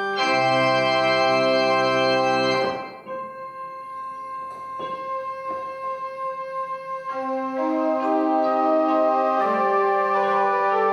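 Instrumental background music of long held chords, thinning to a softer passage about three seconds in and filling out again about seven seconds in.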